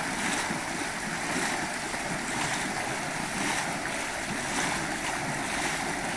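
Steady rush of water: an even, continuous hiss without distinct splashes or knocks.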